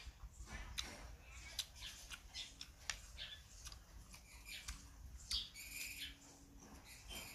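A person chewing and smacking while eating, with many small scattered clicks and snaps.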